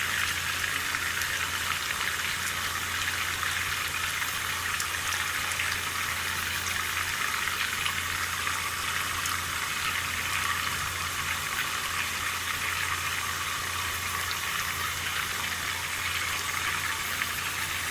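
Water tap running steadily into a sink, an even splashing rush of water with a steady low hum underneath.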